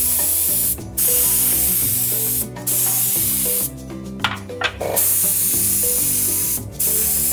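Compressed-air spray gun hissing in bursts of one to two seconds with short breaks, spraying coloured cocoa butter onto a polycarbonate chocolate mould.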